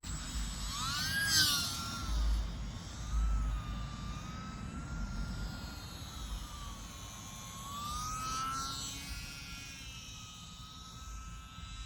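E-flite UMX Yak 54 180 micro RC plane's electric motor and propeller whining in flight, the pitch rising and falling as the throttle changes and the plane passes, with a sharp swoop about a second in. Wind rumbles on the microphone, strongest between about two and three and a half seconds in.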